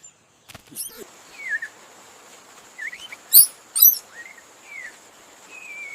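Short high-pitched chirps and squeaks over a steady outdoor background with a faint high hiss. Two loud, very shrill squeaks come about half a second apart a little past the middle.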